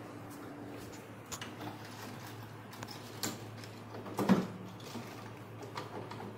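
Scattered clicks and knocks of an ice tray being handled in a refrigerator's freezer compartment, the loudest knock about four seconds in, over a steady low hum.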